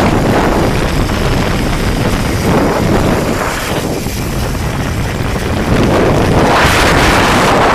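Wind rushing over the camera microphone as riders speed down a zip line, loud and steady, swelling again near the end.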